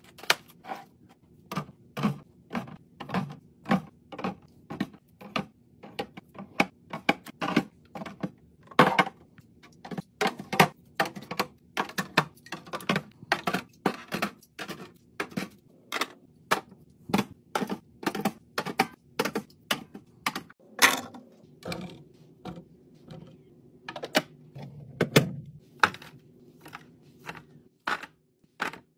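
Items being set down and handled while restocking a fridge: a quick, irregular run of hard clicks and knocks, about one or two a second, with a louder knock about two-thirds of the way through.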